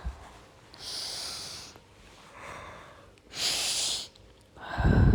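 A person breathing deeply and audibly while holding a yoga pose: four breaths about a second apart, the last one the loudest, with a low rumble.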